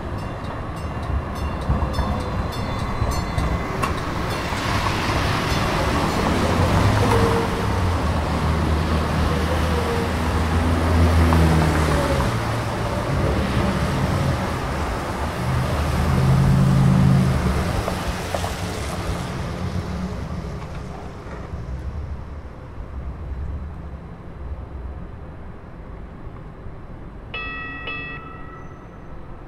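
Light rail trains rolling by on street track downtown: a rumble that swells and fades, with the motor whine gliding up and down as a train passes, mixed with street traffic. A brief pitched tone from a train's horn or gong sounds near the end.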